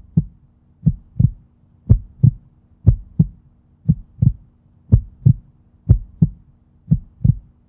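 Heartbeat sound effect: low double thumps, lub-dub, about once a second, over a steady low hum.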